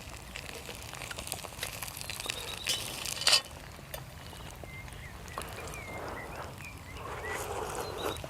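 Soft, irregular crackling and popping from campfire cooking, with one louder crack about three seconds in. Faint bird chirps come in around the middle.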